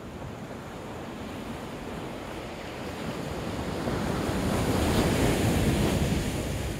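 Ocean surf washing in on a beach, swelling to its loudest about five seconds in and then easing, with wind rumbling on the microphone.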